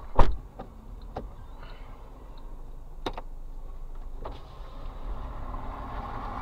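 A sharp click inside the car cabin just after the start, followed by a few lighter clicks. From about four seconds in, the car pulls away, with engine and tyre noise building.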